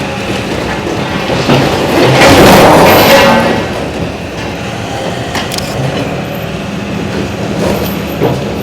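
A steady engine hum runs throughout, and a loud rushing swell rises and falls for about a second, two to three seconds in.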